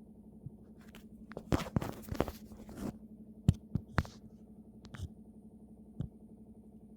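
Irregular knocking and clattering over a steady low hum: a rough burst of clatter about a second and a half in, then single sharp knocks, the loudest about three and a half seconds in, with more around four, five and six seconds.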